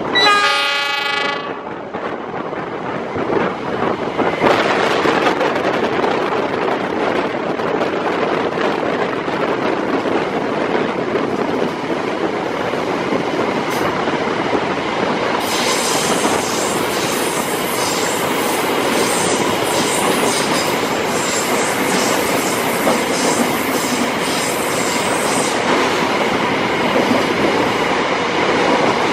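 A train horn sounds once, briefly, near the start. Then the passenger train runs on the rails with a steady rumble and clatter, which grows brighter and more rattling from about halfway through.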